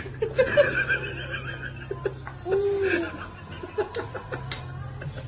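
A man laughing in short bursts, with a few sharp clicks about four seconds in.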